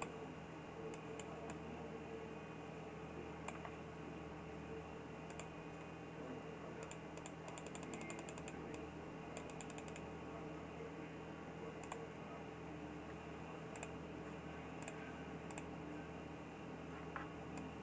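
Computer mouse clicks: scattered single clicks, with a quick run of about a dozen in the middle, over a steady background hum and a faint high whine.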